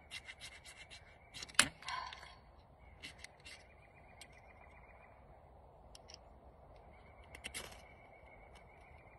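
A new fire-starting flint being struck with a striker: sharp scraping strokes, a quick run of them in the first two seconds with the loudest about a second and a half in, then a few more around three, six and seven and a half seconds in.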